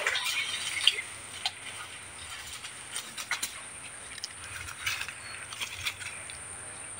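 Rustling and scattered clicks from footsteps and handling in dry fallen palm fronds, busiest in the first second with one sharp click, over a steady high-pitched insect drone.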